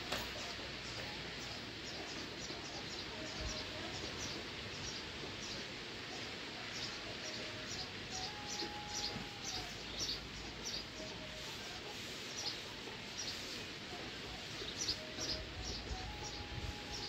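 Small birds chirping in quick, repeated short calls over a steady background hiss, with a few faint short tones lower down.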